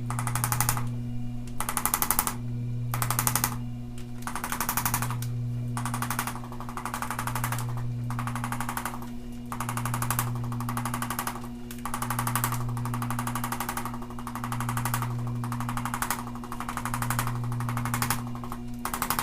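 Handheld percussive massage instrument hammering rapidly on tight back muscles, in repeated bursts of about a second as it is pressed on and lifted, over a steady low motor hum.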